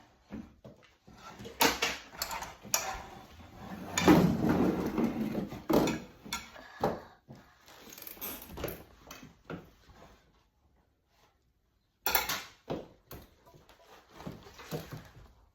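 Kitchen clatter: pans, bowls and utensils being handled, with scattered knocks and clinks and a busier stretch of handling noise about four seconds in.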